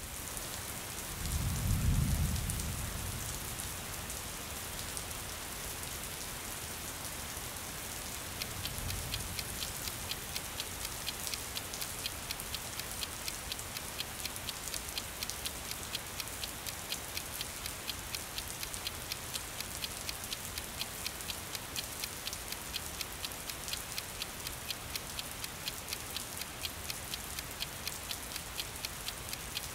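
Steady rain falling on wet pavement and puddles, an even hiss with many small drops ticking, the drops more distinct after about eight seconds. A low rumble swells about two seconds in and again more faintly around nine seconds.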